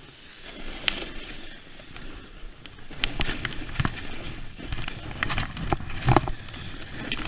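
Snowboard riding fast through powder snow, heard from a camera worn by the rider. There is a steady rush of snow and wind, broken by sharp scrapes and knocks as the board hits bumps and brushes through snow-laden branches. The strongest knock comes near the end.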